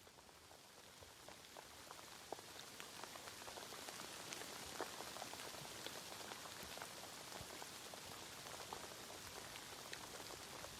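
Steady rain falling outdoors: an even hiss with many single drops ticking distinctly through it, swelling over the first few seconds and then holding steady.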